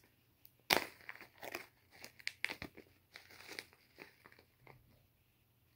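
A small glass jar of dried hibiscus being handled and opened. There is a sharp click about a second in, then a run of light crinkling and crackling that dies away near the end.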